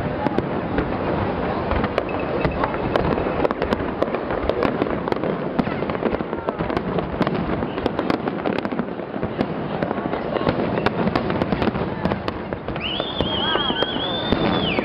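Large aerial fireworks display in a dense barrage: rapid bangs and crackling with no let-up. Near the end a high, wavering whistle rises over it.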